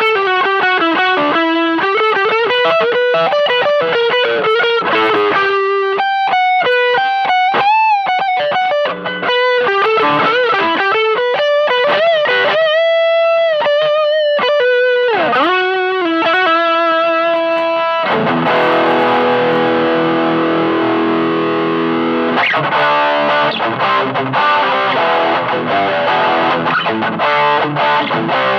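Electric guitar played through a Hotone Nano Legacy Eagle's Heart mini amp head with heavy distortion: a lead line of single notes with bends and vibrato, changing about 18 seconds in to thick distorted chords.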